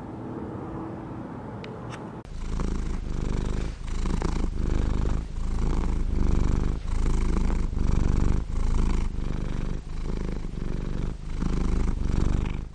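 A cat purring loud and close, a low rumble that swells and dips about every three-quarters of a second with each breath. It starts suddenly about two seconds in, after faint street ambience.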